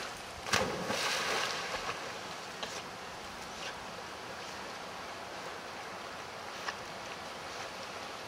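A dog jumps off a wooden dock and hits the water with a loud splash about half a second in, with a second or so of spray after it. A steady, quieter water sound follows as the dog swims out.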